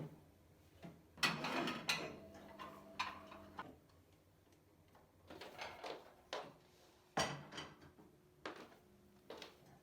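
Household objects being handled during cleaning: a series of separate knocks, clicks and short clattering scrapes, loudest a little over a second in and again about seven seconds in.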